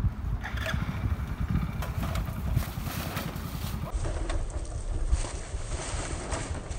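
Hero Splendor motorcycle's small single-cylinder engine running under load as it is pushed up a steep dirt bank, an uneven low rumble.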